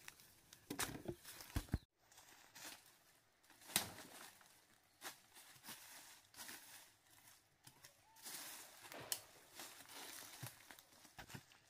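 Faint, irregular rustling and crackling of dry plant material, with scattered sharp snaps and a brief break about two seconds in.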